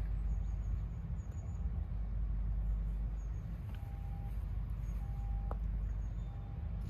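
Steady low outdoor rumble, with a few faint short high chirps and a faint tick about five and a half seconds in.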